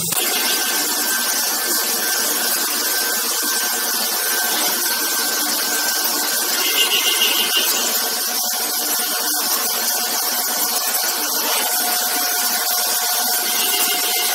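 Five-axis CNC machining centre tapping a G3/8 thread under flood coolant: a steady hiss of coolant spray over a thin machine whine. A lower steady tone joins past the middle.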